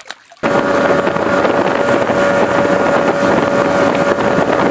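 Boat outboard motor running at speed, a steady rush of engine and wind on the microphone with a steady whine through it, starting abruptly about half a second in.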